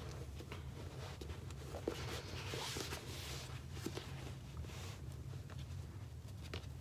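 A fabric drawstring backpack being handled: cloth rustling and rubbing, with a few light clicks, over a steady low hum.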